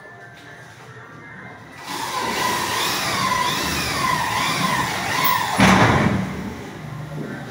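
Corded power drill running under load overhead, its motor whine wavering up and down in pitch, starting about two seconds in. A short loud burst of noise comes about two seconds before the end.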